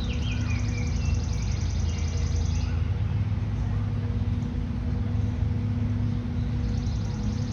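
Small birds chirping, with a rapid high trill of quickly repeated notes for the first couple of seconds and again near the end, over a steady low hum like distant traffic.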